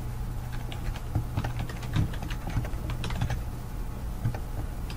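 Computer keyboard keys clicking in an irregular run of typing, over a steady low hum.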